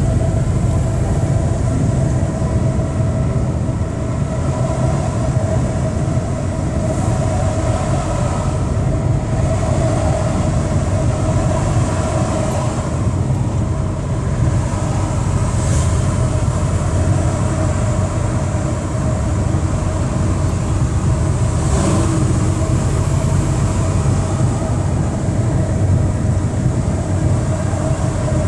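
Steady engine drone and road noise inside the cab of a moving vehicle, with a few brief swells of hiss.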